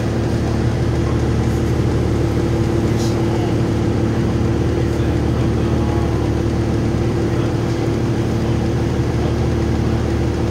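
Cummins ISL 8.9-litre diesel engine of a 2007 New Flyer D40LF transit bus running at a steady speed, heard from inside the bus: an even low hum that holds one pitch throughout.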